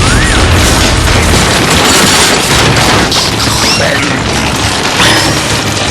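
Loud, dense din of cartoon sound effects: continuous crashing and booming, with heavy low rumble in the first second and a half, and a few short sliding whistles and squeals.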